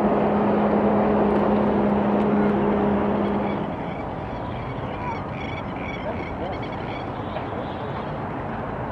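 Outdoor waterside ambience: a steady low hum that cuts off abruptly about three and a half seconds in, over constant rushing wind-like noise, followed by a run of faint high chirps.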